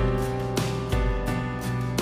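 Background music, a pitched instrumental tune with new notes struck about twice a second over a steady bass.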